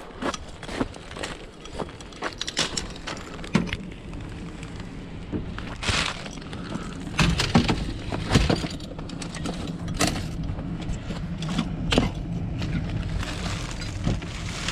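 Irregular clatter of scrap being handled and loaded: cans and metal pieces knocking and rattling, with several sharper clanks about halfway through and later.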